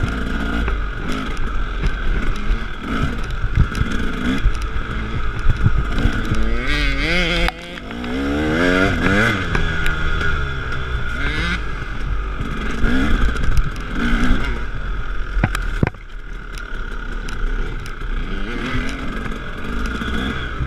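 Two-stroke KTM 300 dirt bike engine, heard up close from the handlebars, revving up and down as the throttle is worked over rough trail, with the pitch sweeping down and back up and the throttle briefly shut twice. Knocks and rattles from the bike over the ground come through with it.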